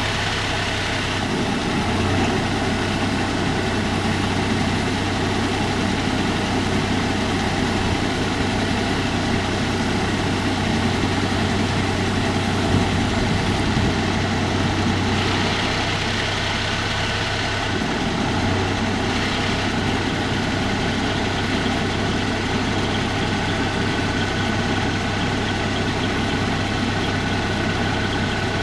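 Cummins NTC350 six-cylinder turbo diesel of a 1982 Autocar DC64B winch truck idling steadily. A faint steady high whine joins about two-thirds of the way in.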